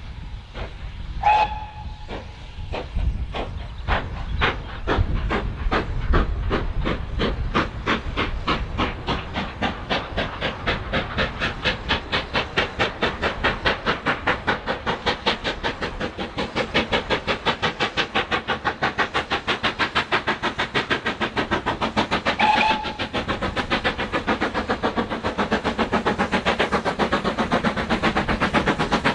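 Steam locomotive getting away, its exhaust beats quickening steadily from about one a second to four or five a second. A brief whistle sounds about a second in and again about twenty-two seconds in.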